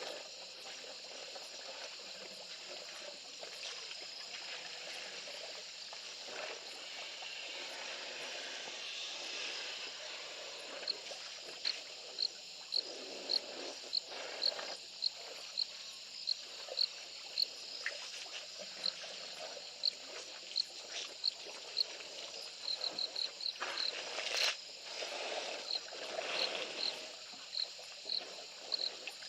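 Outdoor ambience at a waterhole where elephants are drinking. A short, high chirp repeats about twice a second from about a third of the way in, briefly quicker later. Over it lie low patches of rustling and sloshing, and a single sharp click comes near the end.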